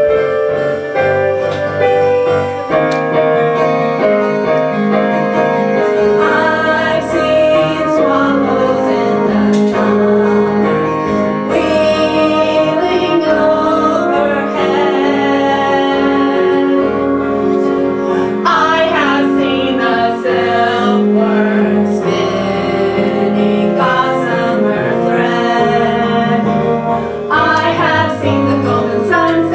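A musical-theatre song: a female voice singing a sustained, flowing melody over piano accompaniment.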